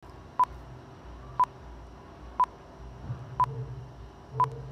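Five short electronic beeps at one pitch, evenly spaced one a second, over a faint low hum.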